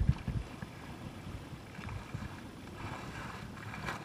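Wind buffeting the camera microphone and water rushing beneath an inflatable towable tube being pulled by a boat, with a few low thumps in the first half second.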